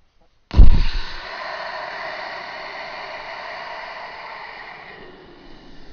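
A person imitating an ocean wave with their mouth: a long breathy 'shhh' hiss blown close into the microphone, opening with a sudden loud breath pop and slowly fading over about four seconds.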